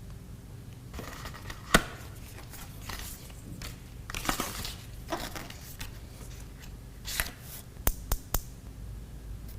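Product packaging being handled and opened: crinkling and rustling of paper or plastic, broken by a few sharp clicks. The loudest click comes near the start, and three quick ones come near the end.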